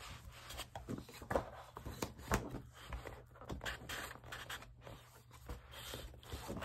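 Sheets of scrapbook paper rustling and sliding against one another as a stack is handled and shuffled, with irregular scrapes and a few sharper taps.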